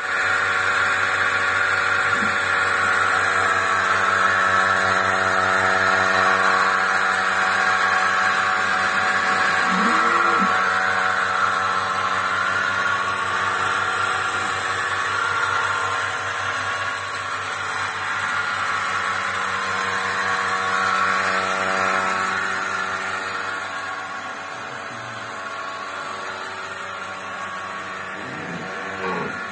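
Milking machine's vacuum pump running with a steady mechanical hum, a little quieter from about two-thirds of the way through.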